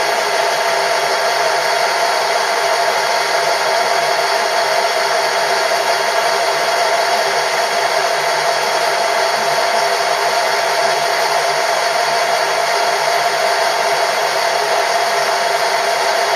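Metalworking machine tool running steadily: an even, unchanging whir with a steady hum in it.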